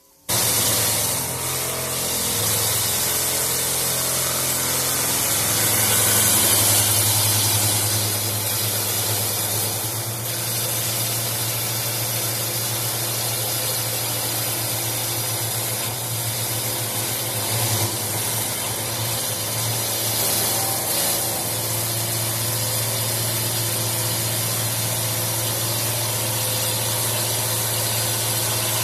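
Three-spindle CNC wood turning lathe running and cutting wooden balusters: a steady hiss from the tools shaving the spinning wood over a steady motor hum.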